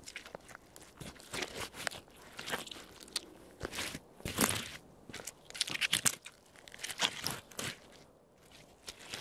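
Timberland boot soles stomping and grinding crushed orange pulp and peel into rough asphalt: a series of uneven crunches and scrapes, loudest around the middle.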